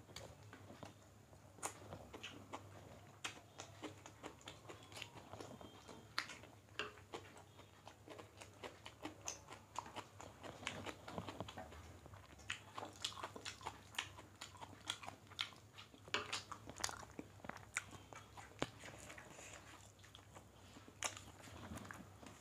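Two people eating rice and chicken curry with their hands: chewing and many short, irregular mouth clicks, mixed with fingers working rice on the plates.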